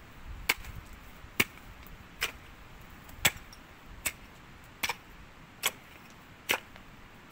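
Pickaxe striking the ground again and again in a steady rhythm, eight sharp blows a little under a second apart.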